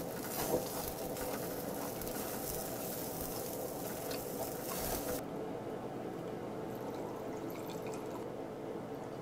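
Chicken skewers sizzling and crackling over the open flame of a tabletop grill; the sizzle cuts off suddenly about five seconds in. Near the end, tequila is poured from the bottle into a glass of ice.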